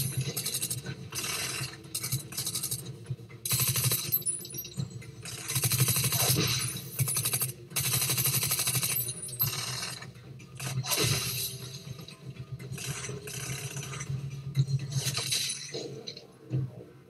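Repeated bursts of rapid gunfire, with bullets striking metal and breaking glass, coming in bursts of up to about a second each.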